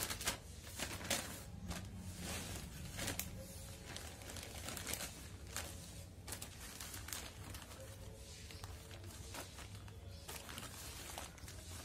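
A plastic poly bag crinkling and soil rustling as a thuja plant is set into the bag and potting soil is worked around it by hand: a string of scattered crackles and rustles.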